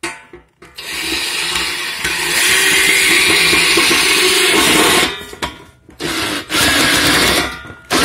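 Black+Decker cordless drill driving a long screw through the bottom of a metal bowl into wood. The drill runs for about four seconds, stops, gives a couple of short bursts, then runs again for about a second near the end.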